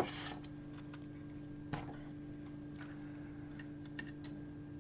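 A few faint, short clicks and taps from handling wires and parts at a workbench, over a steady low background hum.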